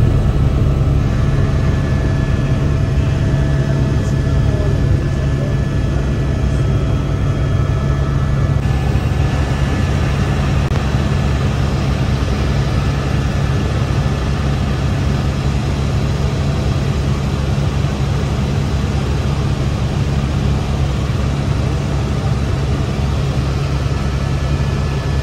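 Helicopter cabin noise in flight: a loud, steady drone of engine and rotor with a few constant whining tones over it.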